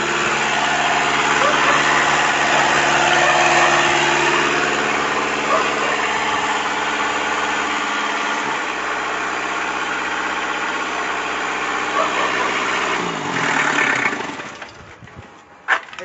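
Kubota mini backhoe's diesel engine running steadily after an injector rebuild, then shut off about 14 seconds in and winding down to a stop.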